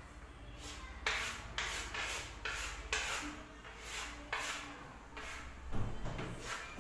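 Chalk scratching across a chalkboard in quick repeated shading strokes, about two a second, starting about half a second in.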